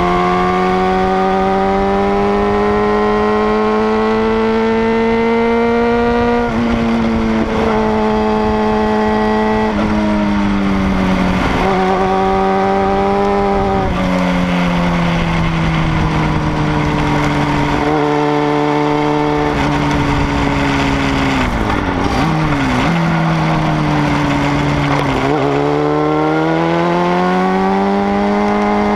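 Sport motorcycle's engine heard from the tail of the bike while it is ridden through curves. Its pitch climbs under throttle, drops sharply at each gear change or roll-off (three times in the first half), dips low, then rises again near the end, over a rush of wind and road noise.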